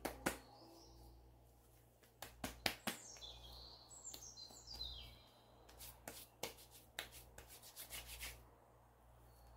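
Hands patting and tapping the face during a facial self-massage: a scattered run of light skin slaps and taps. A few high, falling bird-like chirps sound about three to five seconds in.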